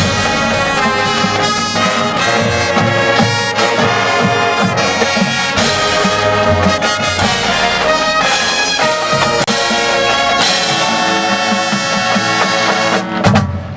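Marching band brass and percussion playing loudly, with trumpets and trombones carrying the melody over a driving drum pulse. Near the end comes a big accented hit, after which the high brass drops away and lower sustained brass remains.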